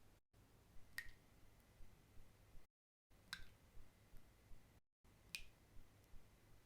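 Three single water drops falling into water, about two seconds apart, each a sharp plink with a short ringing tone after it. The sound drops to dead silence for a moment between drops.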